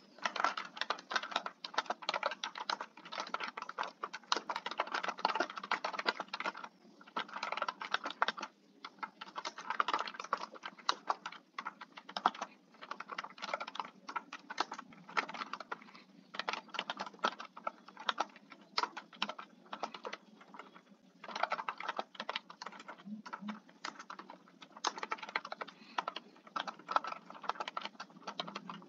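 Computer keyboard typing in quick runs of keystrokes, broken by several short pauses.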